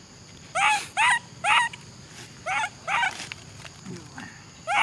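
Young macaque calling: five short, high, arched cries, about two a second, in a run of three and then a run of two.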